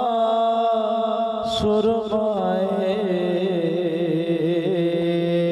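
A man singing a Punjabi naat unaccompanied through a microphone and loudspeakers, drawing out long notes with a wavering vibrato. A steady low tone sounds underneath.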